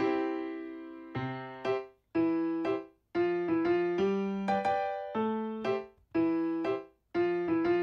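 Background music played on a keyboard: chords and single notes struck about once or twice a second, each ringing out and fading.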